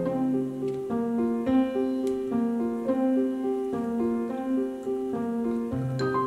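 Background music: a slow piano melody of single held notes stepping up and down, with a low bass line coming in near the end.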